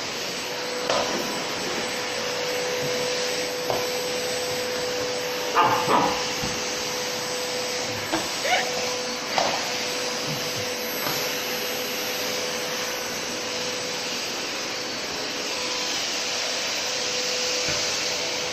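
Vacuum cleaner running steadily with a constant hum. A few short sounds break in over it, the loudest about six seconds in and again around eight to nine seconds.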